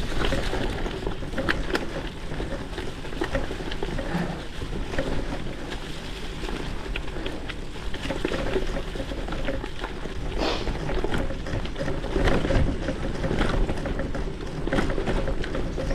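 Gravel bike with wide 650×47c WTB Byway tyres rolling along a dirt trail: a steady rumbling tyre noise with frequent small clicks and rattles.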